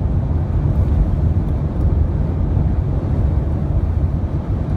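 Steady low rumble of a vehicle driving at speed on a highway: engine and tyre noise with no change in pitch.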